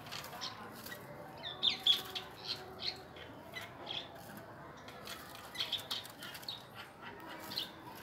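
Lovebird giving short, sharp chirps every so often, the loudest pair about two seconds in.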